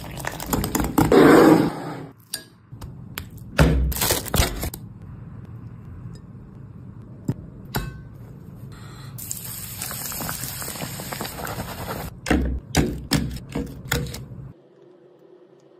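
Water poured from a plastic bottle into a bowl of flour, then a run of short taps, clinks and scrapes of dishes and utensils as the food is handled. A softer stretch of hiss comes about two-thirds of the way through.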